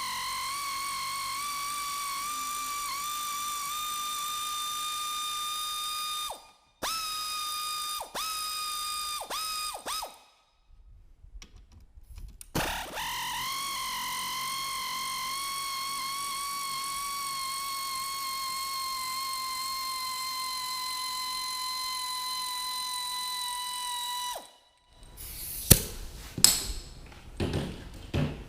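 Power tool motor whining steadily as it runs the seat-bracket 1/2-inch nuts off: one run of about six seconds, a few quick trigger blips, then a longer run of about twelve seconds that spins up and sags slightly in pitch before stopping. Metal clunks and knocks near the end.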